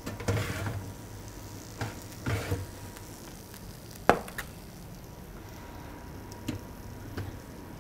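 A metal baking tray is slid out of an oven with short scrapes and set down on a countertop with one sharp clank about four seconds in, followed by a few small clicks as the oven door is handled.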